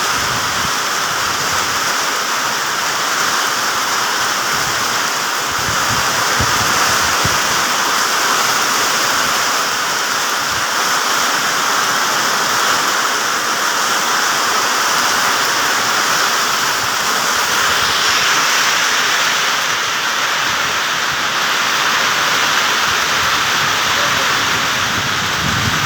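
Steady rain falling on plant leaves, an even wash of drops that never lets up.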